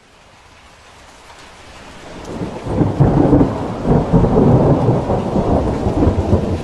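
Thunder rolling over steady rain: a low rumble that builds over about three seconds, then rumbles on heavily and unevenly until it cuts off near the end.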